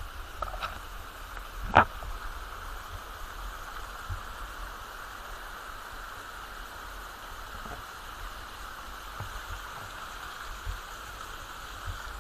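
Steady rush of falling water from a waterfall, with a single sharp click about two seconds in.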